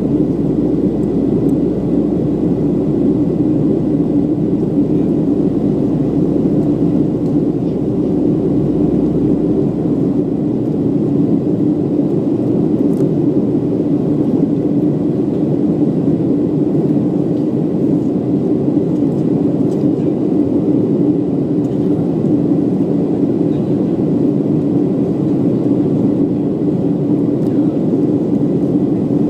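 Steady cabin noise of a Boeing 737-700 in flight, heard from a window seat over the wing: the drone of its CFM56-7B turbofan engines mixed with airflow, with a faint steady high whine. A low rumble underneath drops away about ten seconds in.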